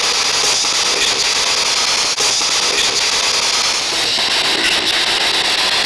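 Spirit box radio sweeping through stations: steady loud static with a few faint clicks as it skips from station to station.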